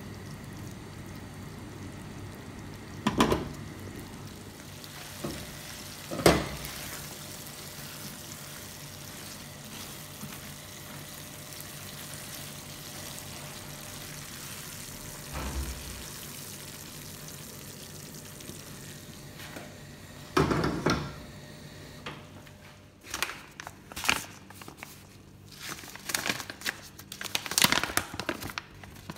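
Masala vegetables simmering and sizzling in a nonstick frying pan, with a silicone spatula knocking against the pan a few times. Near the end, a paper-and-plastic pouch of quinoa crinkles in quick bursts as it is opened.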